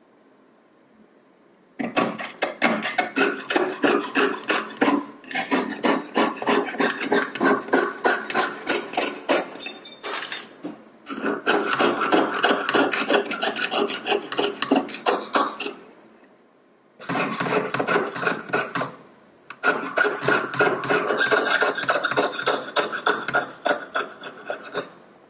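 Jeweller's piercing saw cutting through sheet metal in quick, even back-and-forth strokes, about four or five a second, in several runs with short breaks between them.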